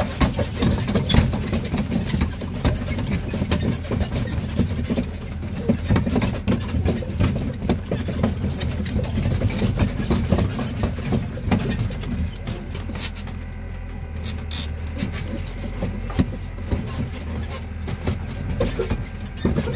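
Tourist road train's engine running as the carriages rattle and knock over rough farm tracks. About twelve seconds in it settles to a quieter, even hum with fewer knocks.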